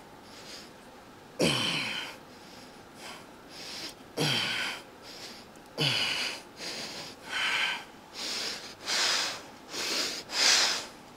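A man breathing hard through the strain of a set of cable biceps curls: three forceful exhales with short falling grunts, then quicker, shorter panting breaths about every half second toward the end as the set gets harder.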